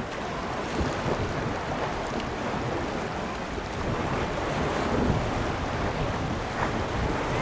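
Wind buffeting the microphone over the wash of water, a steady rushing noise.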